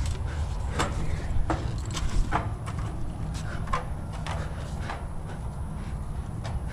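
Scattered knocks, taps and scuffs of someone climbing, stepping on a gutter and the wall, over a steady low rumble; the loudest knocks come about a second and a half and two seconds in.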